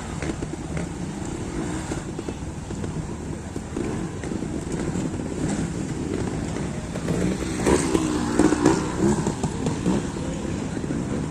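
Trials motorcycle engine running, with the revs rising and falling in short bursts about two-thirds of the way through.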